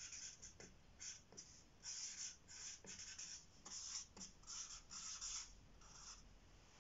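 Faint scratching of a marker pen on a whiteboard, in a run of short irregular strokes as words are written by hand.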